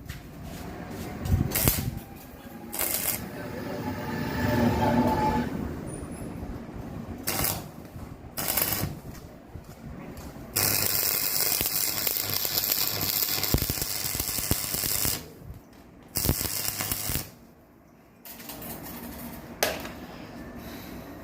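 Metal fabrication work: loose clattering and knocking of metal pieces, with a few seconds of steady crackling hiss from about halfway through, broken by short pauses.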